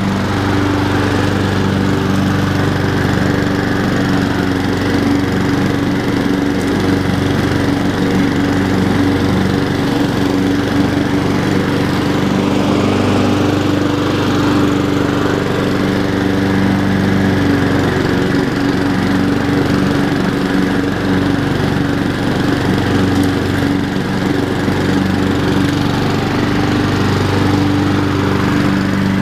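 Honda HRR216 self-propelled lawn mower's single-cylinder four-stroke engine running steadily while cutting grass.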